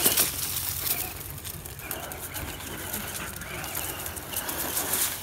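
ECX Amp MT electric RC monster truck driving hard on concrete and dry leaves, its motor whine rising and falling with speed, with scraping bursts near the start and again near the end.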